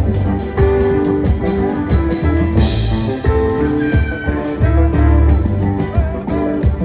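A live band playing instrumental music: heavy repeated bass notes under a steady drum beat, with sustained chords and melody notes above.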